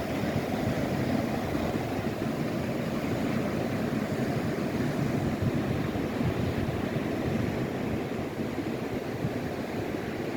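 Steady rushing of ocean surf on the beach, mixed with wind buffeting the microphone, heaviest in the low rumble.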